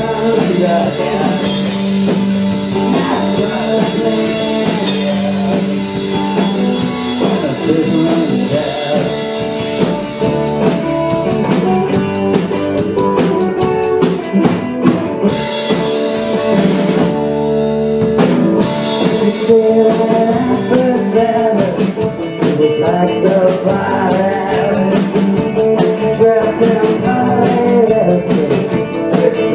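A live band playing a song, with a drum kit keeping a steady beat under guitar and some singing. The drums drop out briefly about halfway through, then come back in.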